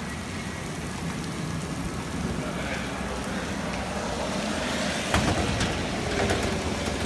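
Steady hiss of heavy thunderstorm rain on wet pavement, with a few sharp knocks about five and six seconds in.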